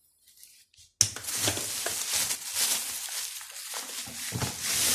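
Packaging rustling and crinkling, with many small clicks and knocks, as vacuum cleaner parts are handled. It starts suddenly about a second in.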